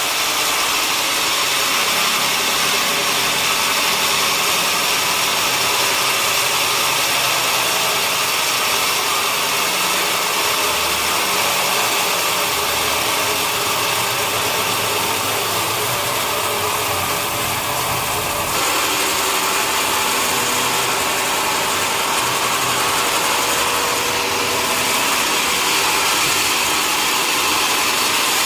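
Sawmill machinery running steadily, a log saw and its drive motor, with a slight change in tone about two-thirds of the way through.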